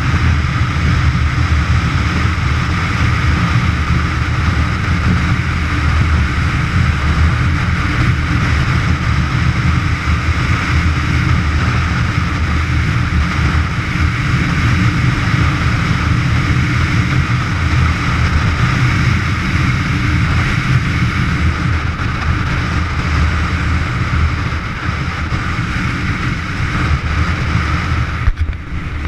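Motorcycle riding steadily at road speed: constant wind rush over the camera microphone with the engine and tyre drone underneath.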